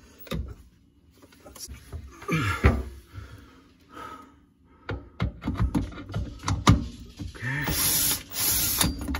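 Milwaukee cordless drill in reverse backing out a screw on a garbage disposal's discharge elbow, with a string of clicks and knocks as the bit and tool work against the disposal, and a steadier run of the drill near the end.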